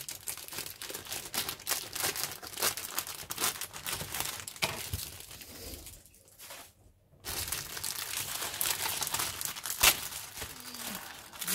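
Clear plastic bag crinkling and rustling as a plastic model kit sprue is handled in it and pulled out. There is a short pause about six seconds in, and one sharper crack near the end.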